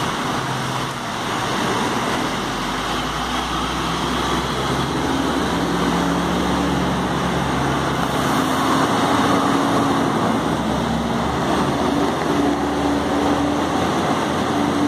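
Fire trucks pulling away through city traffic, their engines running with the note rising in steps as they gather speed.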